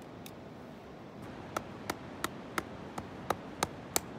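Splitting kindling by batoning: a stick of wood knocks a blade down through a split of firewood on a stump. About eight sharp wooden knocks come at an even pace of roughly three a second, starting about one and a half seconds in.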